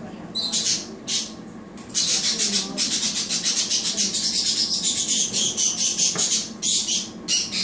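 A large parrot squawking harshly in a string of raspy bursts, some of them more than a second long.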